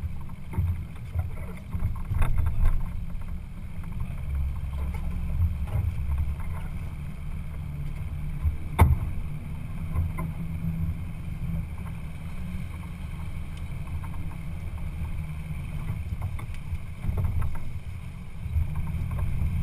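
Uneven low rumble of a boat under way, with wind buffeting the microphone. There is one sharp click about nine seconds in.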